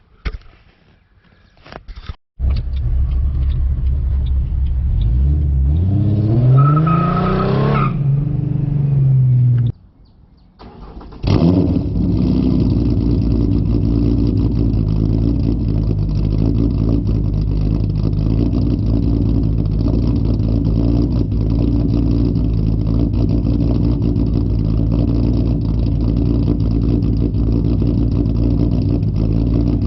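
2008 Ford Mustang's 4.0 SOHC V6 running with a loud exhaust. It is revved once, rising in pitch and holding before cutting off, then after a short gap it settles into a steady idle.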